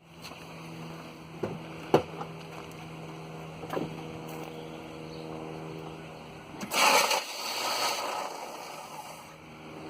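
A 1996 Pontiac Grand Am's bad starter grinding harshly for about two and a half seconds, beginning about seven seconds in, as its gear fails to mesh cleanly with the flywheel. Before it come a few sharp clicks, the loudest about two seconds in, over a steady low hum.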